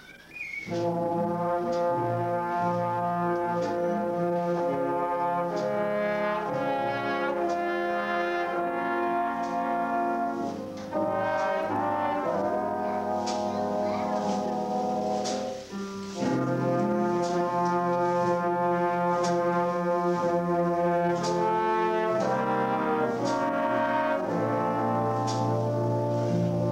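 A brass ensemble starts about half a second in and plays sustained chords, with light, regular high ticks on top. The music breaks off briefly twice, around a third and about halfway through.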